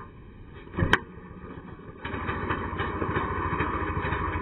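A sharp knock about a second in, then the ice auger's powerhead starts about two seconds in and runs steadily, with an even pulsing beat.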